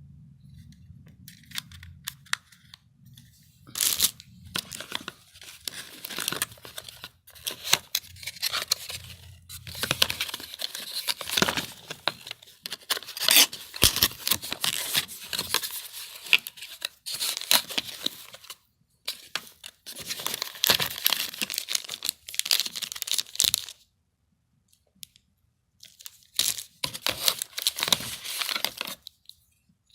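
Packaging being torn open and crinkled by hand, in repeated bursts of tearing and rustling with short pauses, and a longer pause about four-fifths of the way through.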